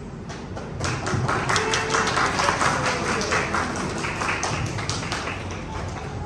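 A crowd of guests clapping and applauding, many quick claps that start about a second in and thin out near the end.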